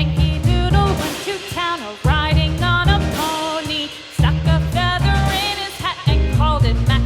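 Background music: a song with a melody line, possibly sung, over a steady bass and drum beat.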